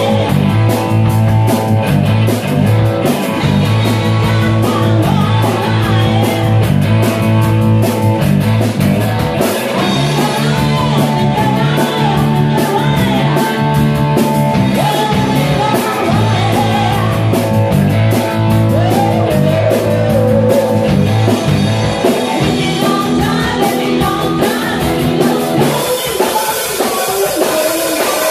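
Live rock band playing loud: two electric guitars, electric bass and a drum kit keeping a steady beat, with a woman singing lead. The bass and low end drop away briefly near the end.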